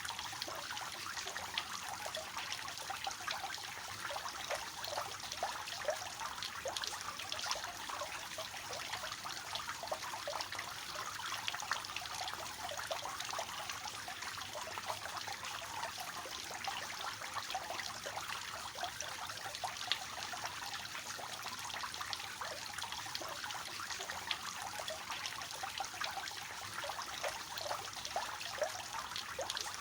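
Water falling from a three-tier cascading fountain, a steady splashing trickle with many small splashes.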